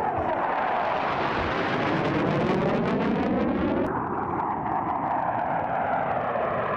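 Loud jet noise of F-16 fighters flying past, with a slow sweeping shift in tone as they go by. The sound changes abruptly about four seconds in as another pass takes over.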